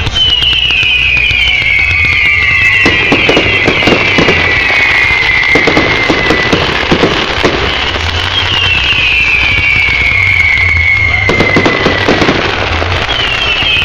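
Fireworks display: several long whistling shells, each sliding down in pitch over a few seconds, overlapping with clusters of sharp bangs and crackling bursts.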